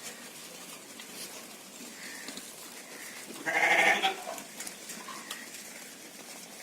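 A sheep bleating once, loudly, about three and a half seconds in, for just over half a second.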